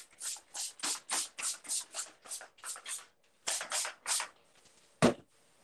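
Cloth wiped briskly across a whiteboard: a quick run of short swishing strokes, about three a second, pausing briefly near three seconds. A single louder thump comes about five seconds in.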